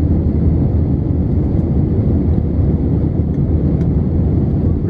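Airbus A320 cabin noise in flight, heard from a window seat over the wing: a steady, deep rush of the jet engines and airflow.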